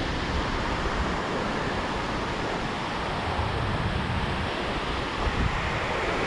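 Ocean surf breaking and washing up a sandy beach, a steady rushing noise, with wind buffeting the microphone in an irregular low rumble.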